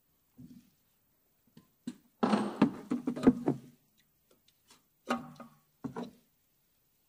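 Hand tools and metal parts knocking and rattling as they are handled during brake hose work, in a dense clatter about two seconds in and two shorter bursts near five and six seconds.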